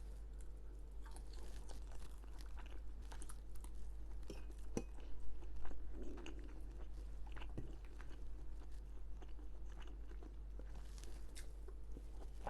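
A person chewing food close to the microphone, with wet mouth sounds and irregular crunches and clicks, a few of them louder near the middle.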